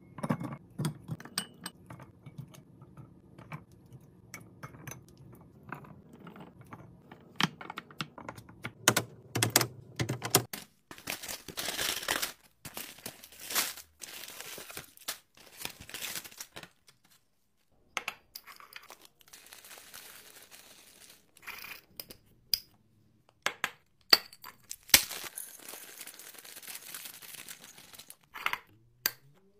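Restocking sounds from several short clips: sharp clicks and clinks of glass jars and plastic scoops, and crinkling packaging. About halfway through, wrapped snack bars slide out of a cardboard box into a wire basket. Near the end, peanuts rattle as they are poured from a plastic bag into a glass jar.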